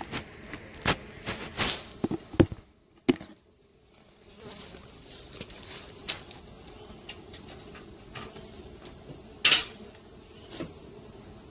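Native stingless bees (Tetragonula carbonaria) buzzing around an opened hive box, broken by scattered sharp clicks and knocks, the loudest about two and a half, three and nine and a half seconds in. The sound almost drops out for over a second about three seconds in.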